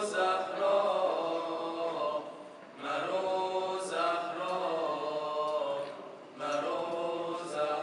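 Male vocal group chanting tawashih, an Arabic devotional nasheed, a cappella: long held, ornamented phrases of about three seconds each, with short breaks between them.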